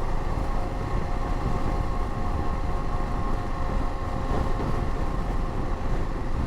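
KTM motorcycle riding at a steady speed, heard through an in-helmet microphone: a steady engine drone over a low rumble of wind against the helmet.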